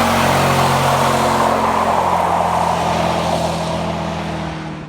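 A car engine held at steady high revs under a loud broad rush of noise, easing slightly near the end.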